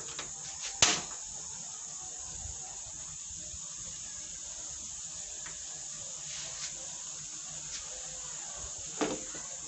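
Carrot and potato pieces sizzling in a very hot non-stick frying pan on a gas burner, a steady hiss, with a sharp click about a second in and another near the end.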